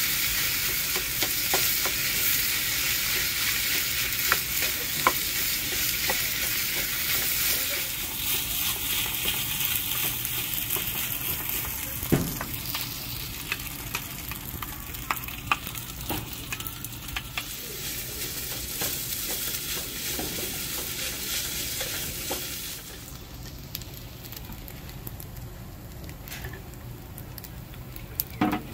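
Crushed cup-ramen noodles and rice stir-frying in a frying pan over a gas flame, sizzling, while two wooden spatulas scrape and tap against the pan. The sizzle drops away sharply about 23 seconds in, leaving quieter scrapes and taps.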